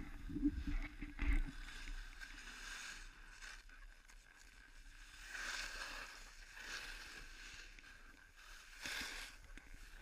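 Skis scraping and hissing over snow, swelling twice in the second half, with a few knocks from the camera on its pole in the first second and a half.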